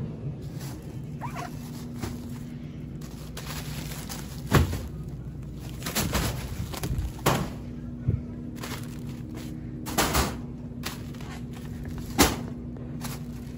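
Plastic-wrapped bulk packs of paper towels being yanked off store shelves and dropped on the floor: about half a dozen dull thumps a second or two apart, with plastic wrap rustling, over a steady low hum.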